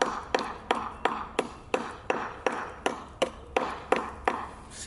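Brick hammer striking the edge of a Pennsylvania bluestone flagstone in a steady run of sharp taps, about three a second, each chipping off a small bit: knapping the stone to a natural-looking cut edge.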